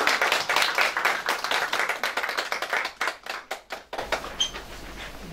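Audience applause, many hands clapping, thinning out and stopping about four seconds in.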